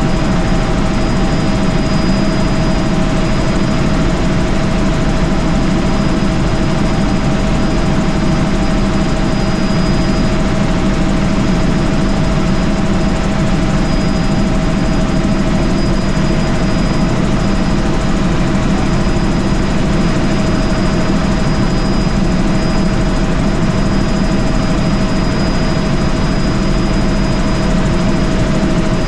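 Helicopter in steady cruising flight, heard from inside the cabin: a constant loud rumble of rotor and engine noise with a steady mid-pitched whine and a fainter high whine over it.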